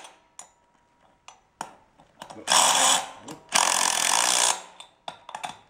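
Cordless power driver run in two bursts of about a second each, driving bolts at a walk-behind tractor's wheel hub, with light clicks and knocks of handling in between.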